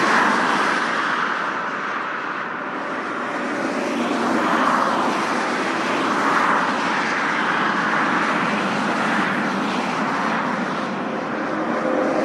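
Highway traffic: a continuous rush of tyre and engine noise from cars passing at speed, swelling as individual vehicles go by every couple of seconds.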